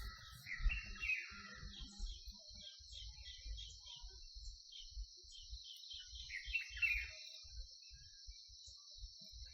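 Insects trilling in a steady high drone, with small birds chirping in short clusters about half a second in and again around seven seconds in. An uneven low rumble runs underneath. No peacock call is heard.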